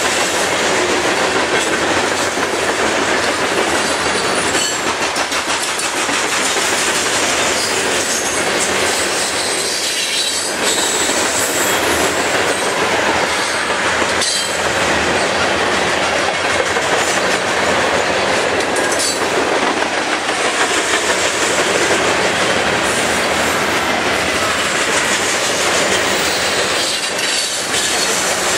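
Loaded grain hopper cars of a freight train rolling past close by: a steady rumble and rattle of steel wheels on the rails. A few brief high-pitched squeals from the wheels break through now and then.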